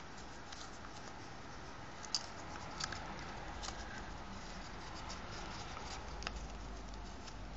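Faint rustling of a paper hexaflexagon being folded and flexed by hand, with a few soft paper clicks.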